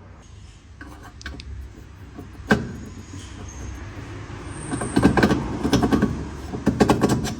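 Metal tools and car parts being handled, knocking and clattering against each other. There is a single sharp knock about two and a half seconds in, then a quick run of clattering metallic knocks over the last few seconds.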